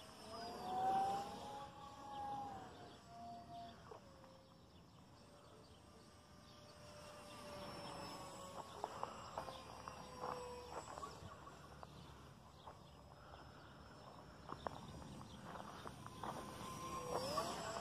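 Racerstar 2508 brushless electric motor and propeller of a small RC foam plane buzzing in flight, a thin whine that glides slowly up and down in pitch as the throttle and the plane's distance change. It is loudest about a second in.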